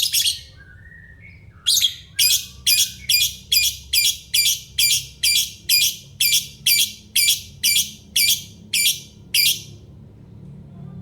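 A lovebird giving a long run of short, loud, high-pitched chirps, about two a second and evenly spaced, after a single call at the start; the run stops shortly before the end.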